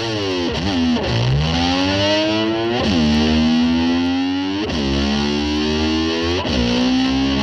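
Distorted electric slide guitar imitating a motor scooter revving: a held note whose pitch dips sharply and slides back up about every two seconds, like an engine being blipped.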